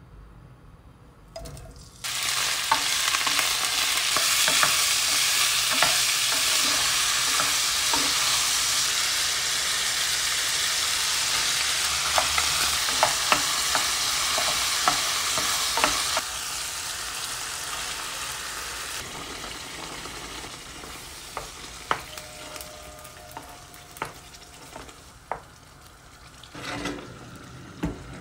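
Pieces of pork sausage sizzling in hot olive oil in a non-stick frying pan, starting about two seconds in as they go into the oil, with a utensil clicking and knocking against the pan as they are stirred. The sizzle turns quieter about halfway through, leaving scattered knocks near the end.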